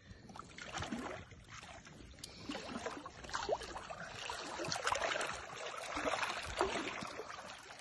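Water sloshing and splashing around a 9-foot white sturgeon held in shallow water as it is let go, getting busier a few seconds in as the fish kicks its tail and swims off.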